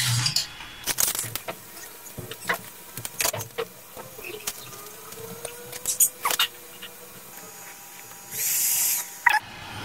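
Scattered clicks and knocks of a filament spool and filament being handled on a Creality Ender 3 Pro 3D printer during a filament change. A faint whine rises and then holds about halfway through, and there is a short hiss about eight seconds in.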